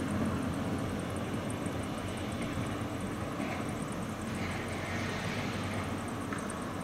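Steady low rumble of diesel work machinery idling in a rail yard, with a high, fast ticking over it.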